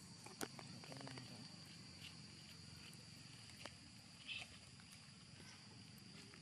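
Near silence: faint outdoor ambience with a steady high hiss, broken by a few faint sharp clicks and a brief rustle.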